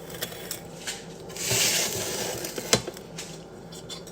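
Kitchen handling noises: a brief rustling hiss about a second and a half in and a single sharp click or knock just before three seconds, with a few light ticks over a faint steady hum.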